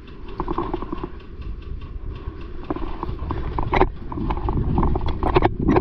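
Quick, regular footsteps, about three a second, with a few louder sharp knocks in the second half.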